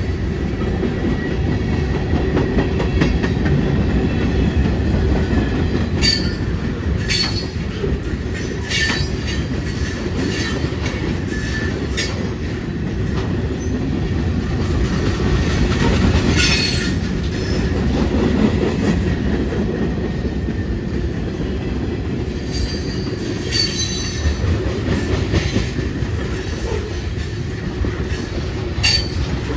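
Train cars rolling past on the rails with a steady low rumble. Short high-pitched wheel squeals and clicks come every few seconds.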